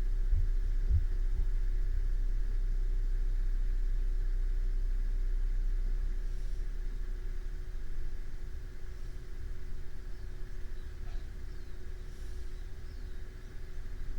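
Slow breathing of a sleeping person, a faint breath every few seconds, under a steady low rumble and hum that eases off about halfway through.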